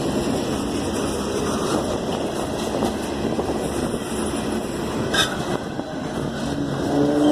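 Freight cars of a manifest train rolling past with a steady rumble of steel wheels on rail, and a brief high squeak about five seconds in.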